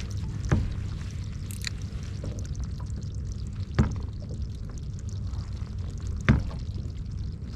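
Water sloshing and lapping against a kayak hull over a low steady rumble, with three sharp knocks against the boat spread a few seconds apart.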